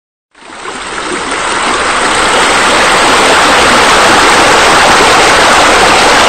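Steady rushing, splashing water of pool water features, the pool-design render's ambient water sound. It starts about a third of a second in and swells over the next two seconds.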